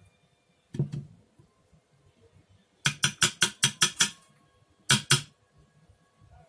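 Kitchen utensils knocking in quick, sharp strokes: a pair about a second in, a fast run of about seven strokes around three to four seconds in, then another pair about five seconds in.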